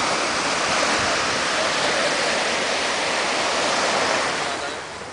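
Surf breaking on a sandy beach: a steady rush of water from a wave washing up the shore, fading away about four and a half seconds in.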